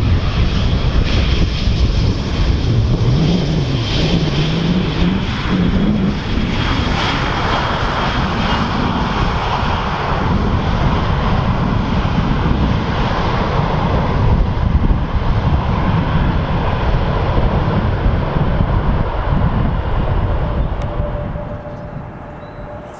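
Jet engine noise from an Airbus A320 airliner passing close by: loud and steady, with a high whine over a deep rumble, then quieter near the end.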